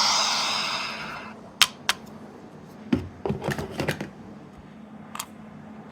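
An electronic alarm sound from a small capsule sound toy fades out. Then come sharp plastic clicks and a short patch of small knocks and rattles, about three seconds in, as the toy is handled.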